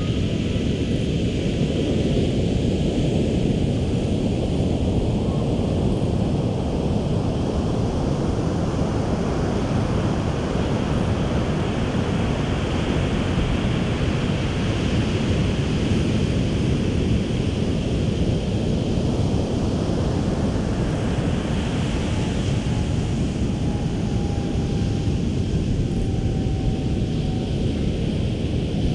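Ocean surf breaking and washing up the beach in slow swells, under steady wind buffeting the microphone. A faint tone falls slowly in pitch near the end.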